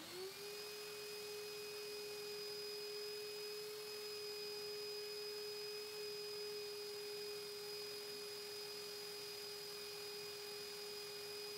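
Canister vacuum cleaner switching on, its motor whine rising in pitch as it winds up to speed in the first half-second, then running at a steady whine over a rush of air.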